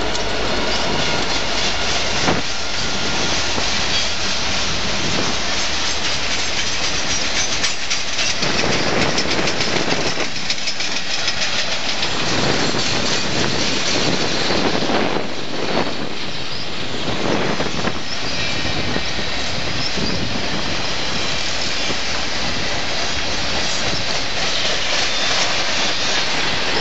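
Canadian Pacific freight train passing close by, with the steady rolling noise of its freight cars' wheels on the rails and faint wheel squeal at times.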